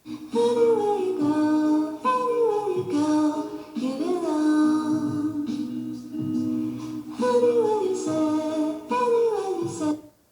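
A song with a woman singing, played back through a JBL Clip portable Bluetooth speaker for a sound test. It cuts off just before the end.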